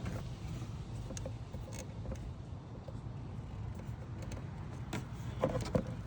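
Faint clicks of small parts being handled over a steady low background rumble, with a short cluster of sharper clicks near the end.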